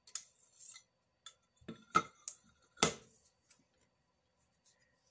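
Scattered sharp taps and clicks of tools and clay pieces being handled on a craft work mat, the two loudest knocks about two and three seconds in.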